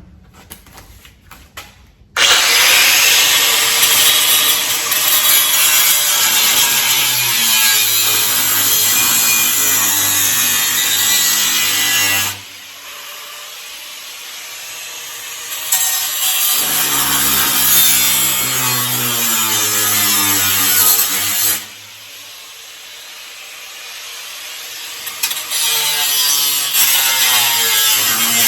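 Angle grinder with a cut-off wheel cutting through metal. It starts about two seconds in and runs in three long loud passes, easing twice in between, with the motor's pitch shifting as the load changes.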